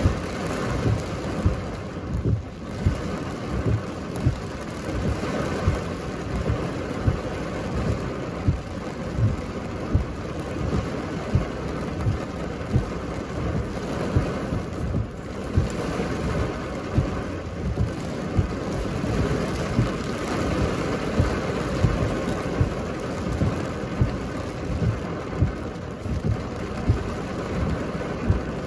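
Heavy rain on a car, heard from inside, as a steady hiss. A short low knock comes about once a second, evenly spaced.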